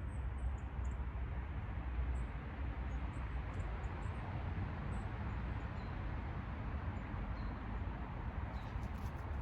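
Steady background noise with a low rumble, and a few faint, short, high chirps scattered through it.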